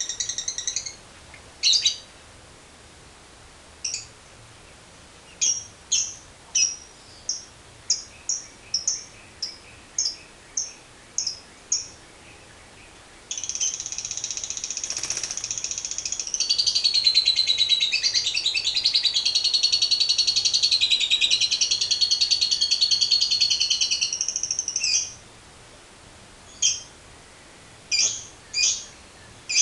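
Lovebird calling: a chatter that stops about a second in, a string of sharp, high chirps about two a second, then one long unbroken rattling chatter of about eleven seconds (the 'ngekek panjang' long chatter prized in a lovebird in full song), followed by more single chirps near the end.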